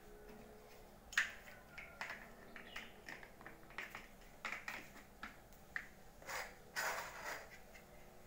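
Large plastic stacking bricks clicking and knocking together as they are handled and pressed into place: an uneven run of small sharp clicks starting about a second in, with a couple of longer scraping clatters near the end.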